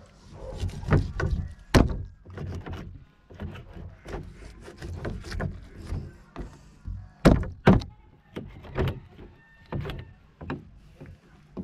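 A large knife chopping through a grouper on a plastic cutting board: a series of irregular thunks as the blade cuts through flesh and bone and hits the board, the hardest blows about two seconds in and a pair around seven seconds in.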